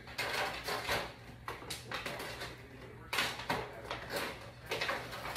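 A run of about five short rustling and scraping noises, each under a second, over a steady low hum.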